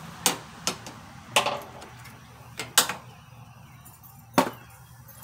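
A handful of sharp, irregular metal clicks and clanks as jump-starter cables and clamps are handled and clipped on at a lawn tractor's battery.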